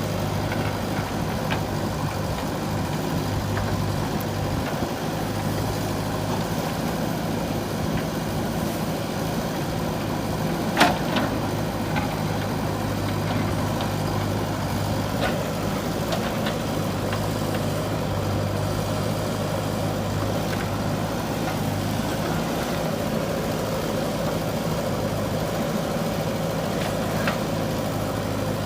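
Diesel engine of a JCB 3DX backhoe loader running steadily, with a single sharp knock about eleven seconds in and a few faint clicks.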